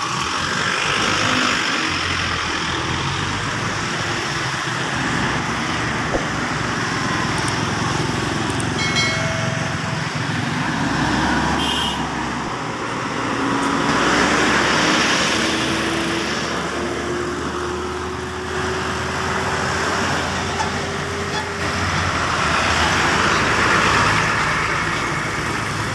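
Road traffic passing close by: cars, motorcycles and heavy trucks going by, swelling louder about a second in, around the middle and again near the end. Through the middle, one engine's note slowly rises in pitch as a vehicle pulls away.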